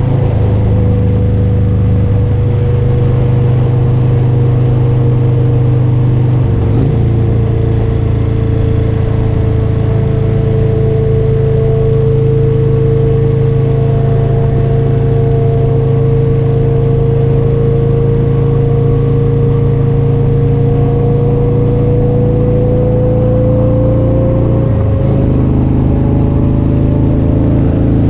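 Motorcycle engine running at a steady cruise under wind and road noise, its note easing slightly lower and then climbing again. The engine note changes briefly twice, about a quarter of the way in and near the end.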